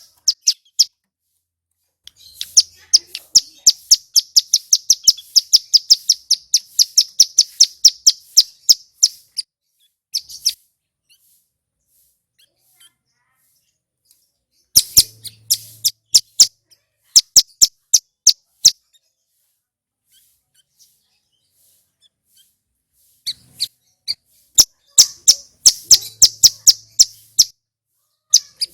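A male ciblek gunung, a mountain prinia, singing in rapid trains of sharp, high chirps at about four a second. The song comes in long bursts with silent pauses between them.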